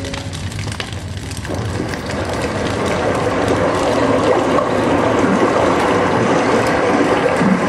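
Crackling fire sound effect, a dense hiss full of fine pops, swelling louder after about a second and a half and then holding steady.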